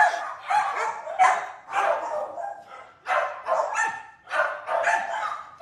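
Dog barking repeatedly, about two short barks a second.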